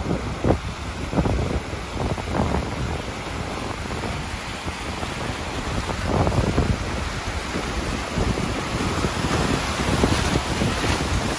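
River rapid rushing and churning around a raft, growing louder about halfway through as the boat enters the white water, with wind buffeting the microphone.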